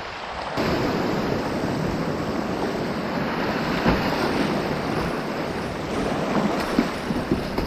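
Whitewater rushing close by in a steady roar that jumps louder about half a second in, with a few faint knocks near the end.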